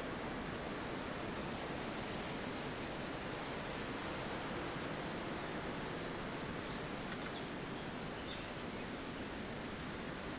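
Steady wind rushing through forest trees, an even soft rush with no gusts or breaks. A few faint bird chirps come through about two-thirds of the way in.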